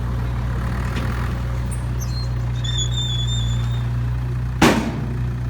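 Dump truck's diesel engine idling with a steady low hum, and one short, sharp burst of noise about four and a half seconds in.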